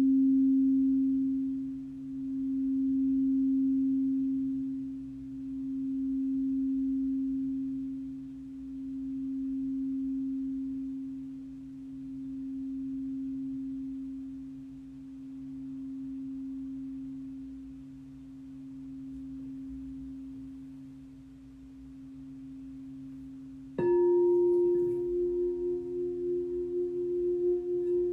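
Singing bowl ringing out with a slow, pulsing waver, gradually fading over more than twenty seconds. About 24 seconds in a bowl is struck again, starting a louder, brighter ring with higher overtones and a quicker waver.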